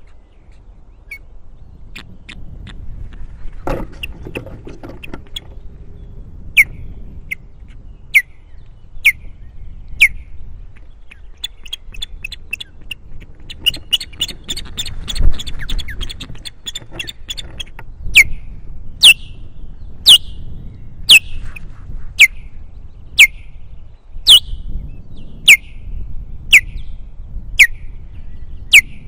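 Osprey giving alarm calls at an intruder: sharp, downward-slurred whistles, sparse at first, then a rapid run of chattering calls in the middle, then loud single calls about once a second toward the end.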